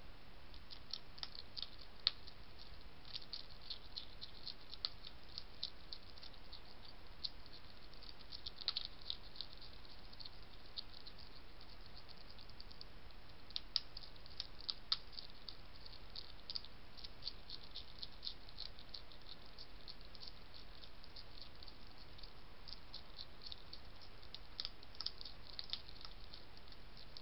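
European hedgehog eating dry pellet food: a rapid, irregular run of small crisp crunches and clicks as it chews, over a steady faint hiss.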